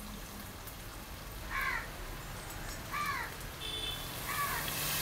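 A crow cawing three times, about a second and a half apart, each caw short and rising then falling in pitch.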